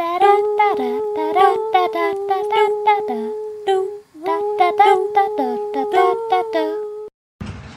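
A voice singing a quick, rhythmic tune over a steady held note, with a short break about four seconds in, cutting off suddenly about seven seconds in. A low rumbling noise follows.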